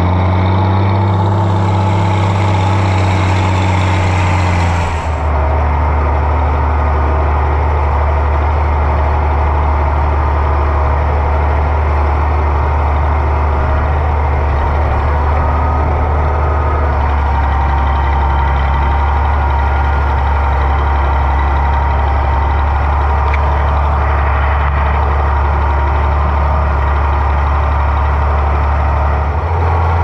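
Oliver 1650 diesel tractor engine running steadily at a low drone. A higher hiss over it stops about five seconds in.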